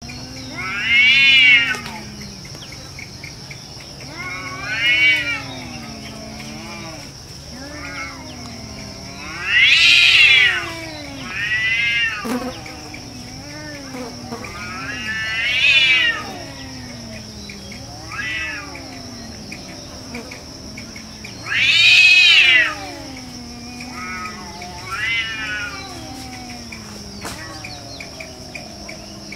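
Two cats yowling at each other in a fight standoff: long, drawn-out caterwauls every few seconds, each rising and falling in pitch, some loud and some softer.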